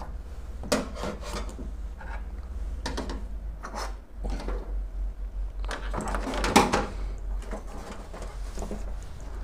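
Handling noise as a plastic thermostat and a clamp meter are picked up and slid across a table: scattered light knocks and rubbing, busiest about six and a half seconds in, over a steady low hum.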